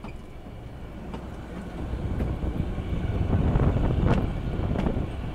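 Kalka–Shimla narrow-gauge toy train rolling slowly into the station, heard from a carriage window, with wind buffeting the microphone. The low rumble swells to its loudest around the middle and then eases, with a few faint clicks.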